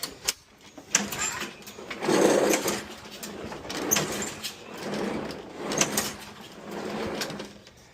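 Craftsman lawn mower's recoil starter being pulled again and again, about once a second, each pull whirring as it spins the engine over without it catching. The owner suspects the engine is losing compression.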